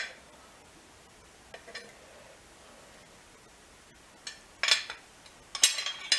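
Small metal parts and tools clinking and clattering as they are handled: a couple of faint clinks, then a run of louder clanks from about four and a half seconds in.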